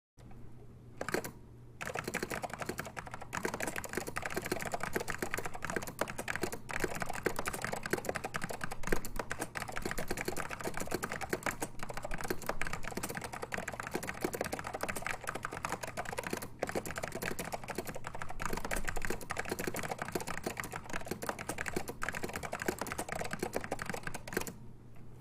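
Continuous fast typing on an Apple Extended Keyboard with orange ALPS key switches: a single keystroke about a second in, then a dense, unbroken stream of key clicks from about two seconds in.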